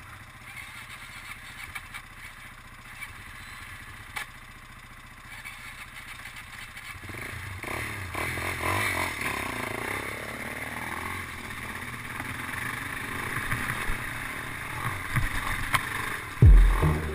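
Dirt bike engines idling, then the helmet-camera rider's bike pulls away and rides along a rough trail, the engine note rising and falling with the throttle. A loud low thump near the end.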